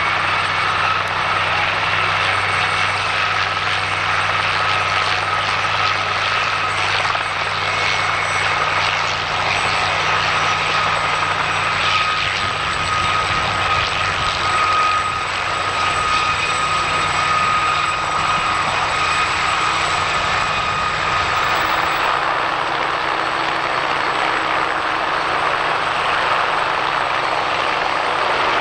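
Light military helicopters flying low, their engines and rotors running steadily. A low hum in the sound drops away about three quarters of the way through.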